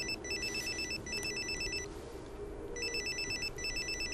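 Mobile phone ringing: an electronic ringtone trilling in quick high pulses, in short bursts of three with a pause of about a second between groups.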